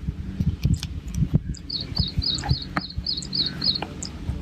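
A bird chirping a quick run of repeated high notes, about five a second, starting about two seconds in. Under it are a steady low hum and scattered sharp clicks.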